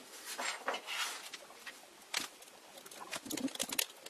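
Light, irregular clicks, taps and scrapes of small aluminium parts being handled as a lever is set onto a model signal box's lever bench, with a quick run of clicks near the end.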